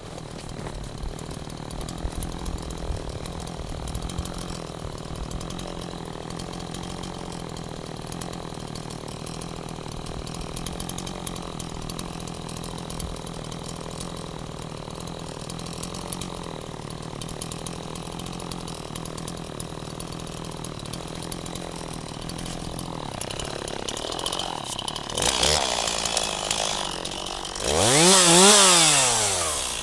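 Chainsaw engine running at a steady pitch, then getting louder near the end and revved up and back down.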